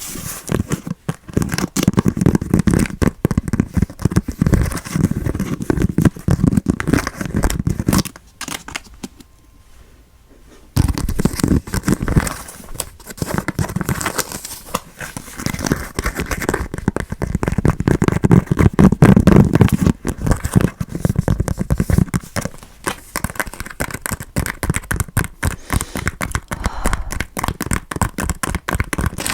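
Close-miked chewing of soft, sticky durian flesh: a dense run of wet, crackly mouth sounds, with a pause of about three seconds about a third of the way in before the chewing resumes.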